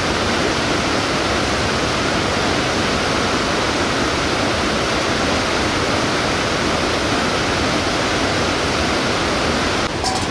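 Fast mountain river rushing: a steady, loud wash of water noise, dipping slightly in level near the end.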